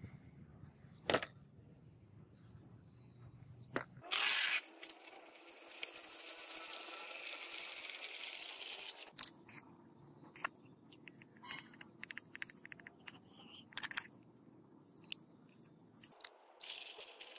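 Rusty metal angle grinder parts clinking sharply twice in a plastic tub. Then water pours into the tub over the parts for about five seconds and stops, leaving scattered small ticks and crackles.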